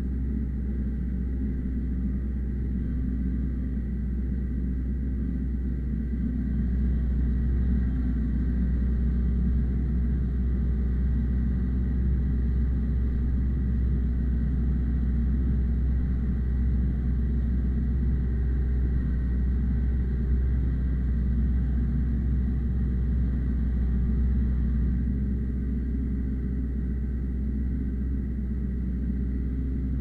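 Ursus C-355 tractor's three-cylinder diesel engine running steadily under heavy load as it pulls a two-furrow plough through hard ground, heard from inside the cab. It grows somewhat louder about six seconds in and eases back near the end.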